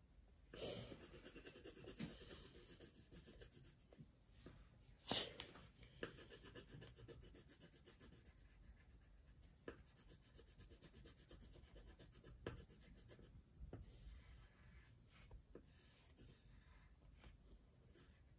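Faint scratching of an orange coloured pencil on paper, many quick short strokes in a row, with a few sharper ticks now and then.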